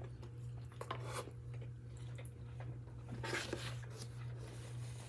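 Quiet eating noises: soft scrapes and clicks of a utensil against a takeout container of rice, with a louder scrape a little past three seconds in, over a steady low hum.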